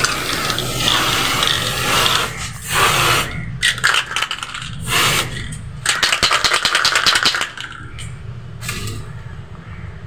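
Aerosol can of white spray paint hissing in several bursts, with fast rattling clicks in between and during some bursts. The hissing eases off after about seven and a half seconds.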